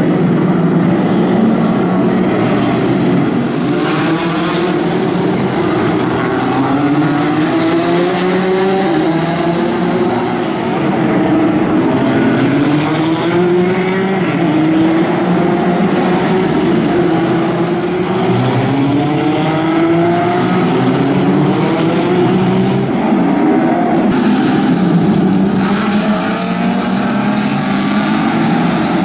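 Historic Grand Prix racing cars' engines running hard, loud and continuous, with rising notes repeatedly broken by gear changes as the cars accelerate.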